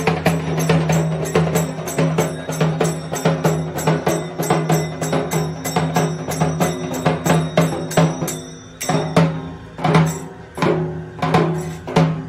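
Dhak, the large Bengali barrel drum, beaten in a fast, steady rhythm of about five strokes a second, breaking into sparser, spaced strokes about two-thirds of the way through.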